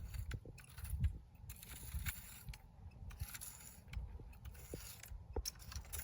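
Repeated scratchy scraping strokes of a garden tool working dry yard soil and weeds, roughly one stroke a second, over a low uneven rumble on the microphone.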